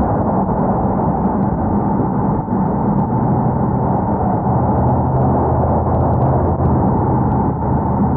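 Acura TL V6 engine running under sustained load, with steady road and wind noise, as in an Italian tune-up: hard driving at high revs to burn off carbon build-up. The engine note grows stronger about four seconds in.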